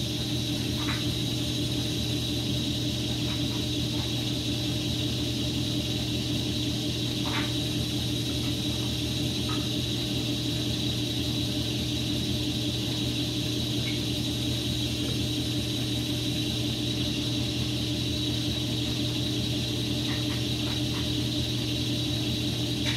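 Steady mechanical hum with a constant low drone and a faint high whine, and a few faint clicks scattered through it.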